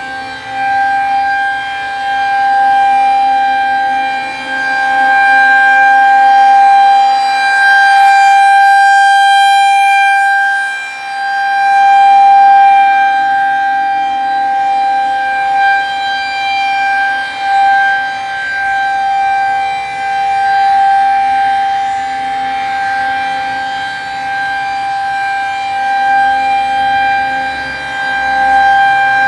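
Tornado warning siren sounding during an equipment test: a loud, steady wail held at one pitch, swelling and fading in loudness every several seconds.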